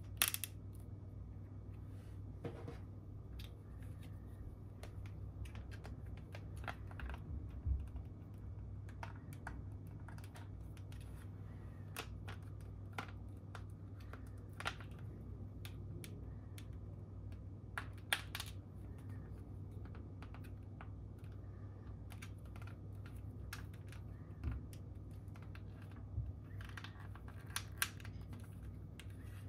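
Irregular clicks and taps of hard plastic being handled: a PVC figure being fitted onto and turned on its clear plastic base, over a steady low hum.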